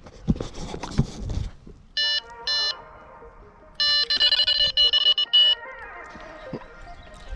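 Electronic carp bite alarm sounding: two single beeps, then about a second later a fast run of beeps, the sign of a fish taking the bait and pulling line.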